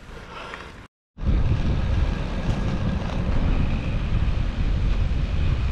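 Wind buffeting the microphone of a moving bicycle rider: a loud, steady low rumble that starts abruptly after a moment of silence about a second in, following a quieter first second.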